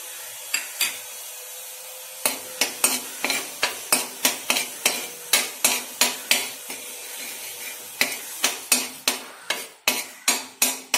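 Steel spoon stirring turmeric powder in hot oil in a metal kadai, clinking and scraping against the pan about three times a second, starting about two seconds in, over a faint sizzle of the oil.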